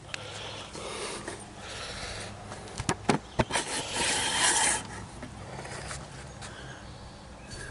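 Handling noises: three sharp clicks about three seconds in, then a scraping rustle lasting about a second.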